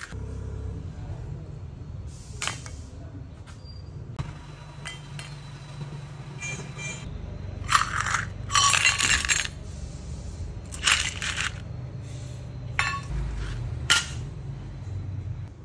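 Small steel bolts, nuts and a spring dropped into a stainless steel cup, making sharp metallic clinks. There are single clinks at intervals and a rapid clattering run about eight seconds in, over a steady low hum.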